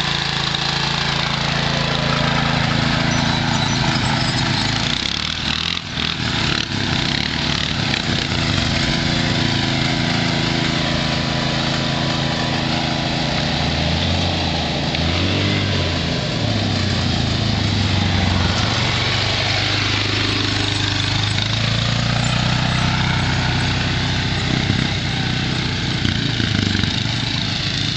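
Small engines of a John Deere garden tractor and ATVs running close by as they drive across a field, the engine note shifting up and down with the throttle.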